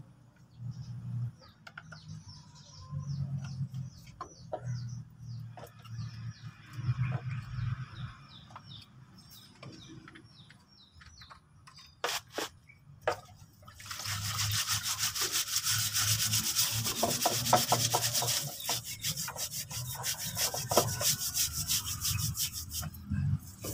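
Brush scrubbing an oil-soaked drum brake shoe over a tray of cleaning oil, in fast, steady strokes from about halfway through, after a few sharp knocks. The lining is being washed because gear oil leaked onto it past a worn axle seal.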